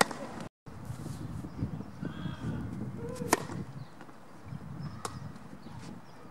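Tennis racket striking a ball on a forehand, then, after a brief cut-out, a few single sharp knocks of tennis balls, the loudest about three seconds in and a smaller one near five seconds. Faint bird calls come in between.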